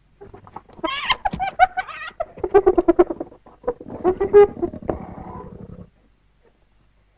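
Spotted hyenas cackling and screeching over a carcass: a rapid run of high, broken calls for about five seconds that stops abruptly.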